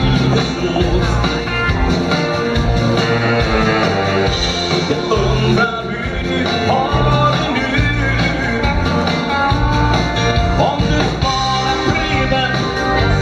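Live rock and roll band playing: electric guitar, saxophone, keyboard and drums driving a steady beat, with a singer at the microphone.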